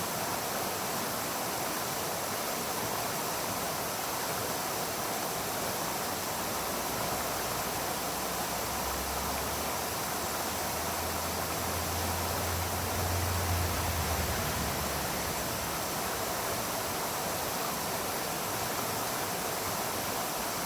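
Mountain brook babbling over rocks: a steady rush of running water. A low rumble swells in under it partway through and fades again after several seconds.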